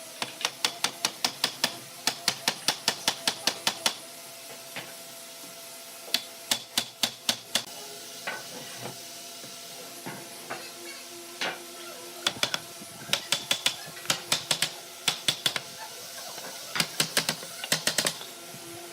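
Runs of sharp clicks or taps, about five a second, stopping and starting several times, over a faint steady hum.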